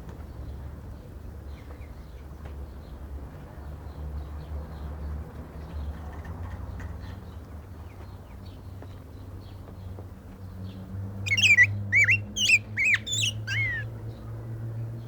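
A black-backed grosbeak (rey del bosque) sings one short phrase of rich whistled notes that glide up and down, starting about eleven seconds in and lasting nearly three seconds. Faint high chirps come before it, over a steady low hum.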